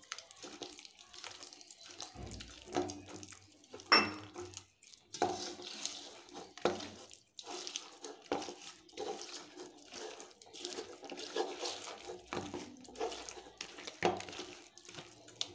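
A hand kneading thick, wet spiced batter in a stainless steel bowl: irregular wet squelches and slaps, with fingers now and then scraping against the metal.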